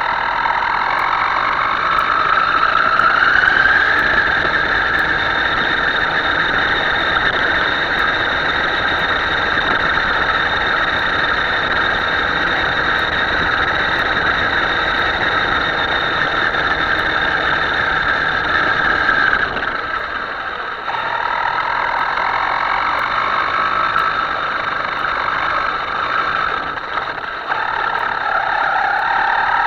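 Radio-controlled model boat's motor running with a steady whine, its pitch climbing over the first few seconds, falling back about twenty seconds in, then rising and dipping again as the throttle changes.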